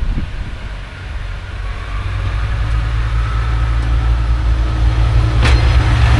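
Diesel train approaching: a low engine rumble that grows steadily louder from about two seconds in, with a faint steady whine above it and a single sharp click near the end.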